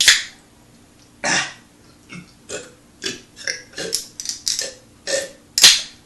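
A man belching a quick string of short burps, about a dozen in six seconds, the loudest at the start and near the end.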